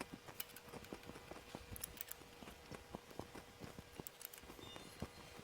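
Faint, irregular metallic clicks and taps, several a second, as the emergency-kit wheel wrench works the wheel bolts on in a star pattern.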